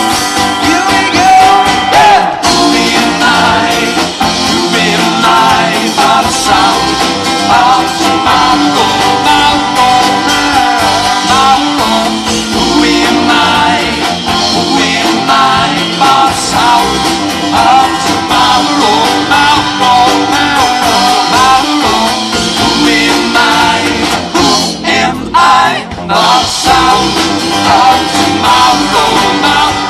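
Live rock band music with guitar, and singing in parts.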